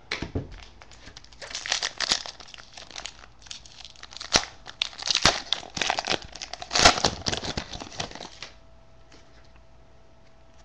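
Wrapper of a Topps Prime football trading-card pack crinkling and tearing as it is opened by hand, with a few sharp crackles; the crinkling stops about eight seconds in.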